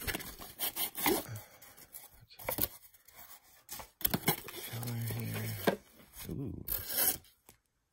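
Cardboard box and its flaps being handled and pulled open, with scraping, rustling and tapping of card and packaging. A short low hum of a voice comes about five seconds in.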